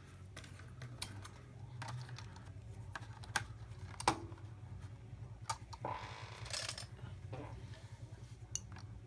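Small clips clicking and snapping as they are clamped onto popsicle sticks around a cardboard blister card, with a brief plastic crinkle about six seconds in. A steady low hum runs underneath.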